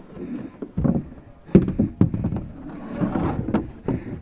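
A 1/4-inch luan trim panel being worked loose from its industrial-strength Velcro: irregular knocks, scuffs and scrapes of the panel against the vehicle interior, with two sharp clicks around the middle.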